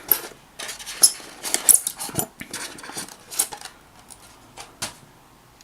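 Irregular clicks and rustles of packaging being handled, small hard plastic and metal pieces knocking, as a die-cast scale model is taken out of its box.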